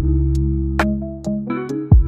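Background electronic music: synthesizer chords over a deep bass, with a steady drum-machine beat.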